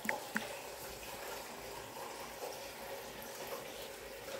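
Two short, high-pitched taps from a phone's on-screen keyboard in the first half-second, then a faint, steady background hiss.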